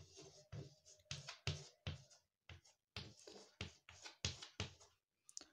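Chalk writing on a chalkboard: a faint, irregular run of short scratches and taps as figures and symbols are written.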